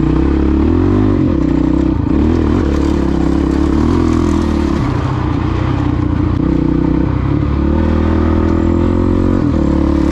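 450 dirt bike's engine running under way, its revs rising and falling over and over as the throttle is worked.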